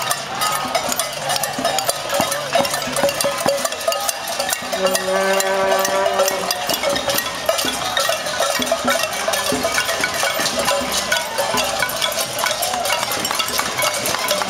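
Many people banging pots and pans with utensils in a casserole protest: a dense, continuous metallic clanging. About five seconds in, a single held tone sounds over it for a couple of seconds.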